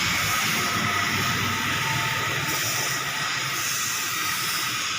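Steady hiss with faint steady high tones running through it.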